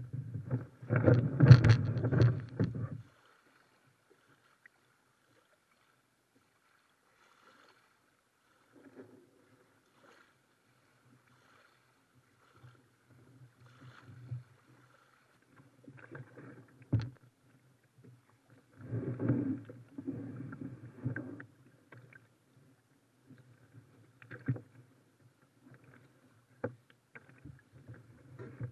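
Close handling noise of a burlap-covered plastic kayak as a man in waders climbs in and shoves it off a pebbly shore into the water: rustling burlap, scraping over pebbles and knocks on the hull. The loudest bout of rustling and scraping comes in the first few seconds, another about two-thirds through, with a few sharp knocks in between.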